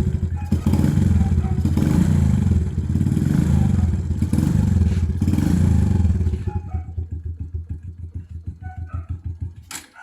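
Suzuki Shogun R 125 motorcycle engine running with a fast, even beat after its oil change, then dying away over the last three seconds, ending with a sharp click.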